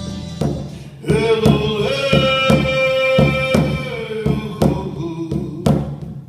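Music: a held chord for about a second, then a voice holding long sung notes over a drum beating about twice a second.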